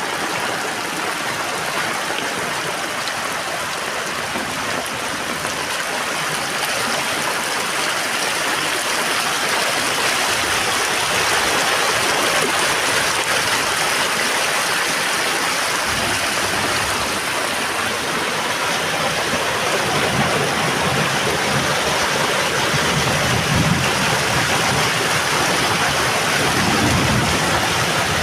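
Heavy rain falling steadily, a dense even hiss that grows a little louder over time. About two-thirds of the way through a low rumble joins it.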